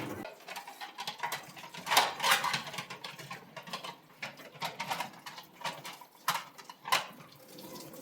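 Irregular knocks, clatters and rustles, as of objects being handled and set down, loudest about two seconds in and again near the end.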